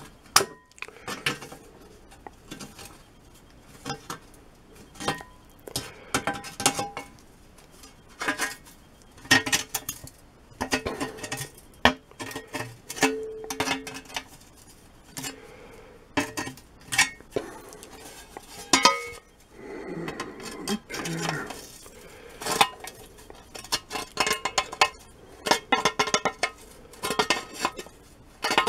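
Slip-joint pliers gripping and bending the thin sheet-metal corners of a small shovel blade: irregular metallic clicks and clinks of the plier jaws on the metal, some briefly ringing.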